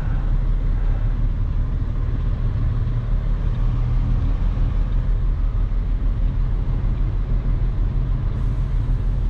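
Crane truck's diesel engine running steadily: a low, even drone with no change in speed.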